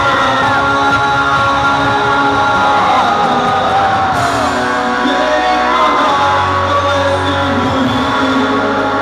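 Live rock band playing loudly, with electric guitar and a singer's voice over the band.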